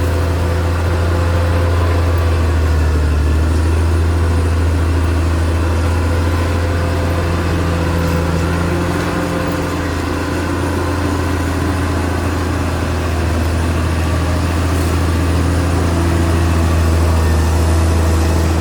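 Caterpillar D6R XL bulldozer's diesel engine running steadily, a low, even drone.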